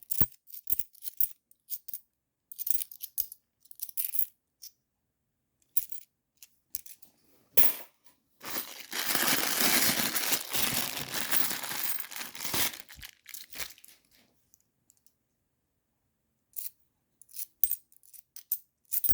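50p coins clicking and clinking as they are handled and sorted one by one, with a denser stretch of rustling and clinking lasting about four seconds in the middle.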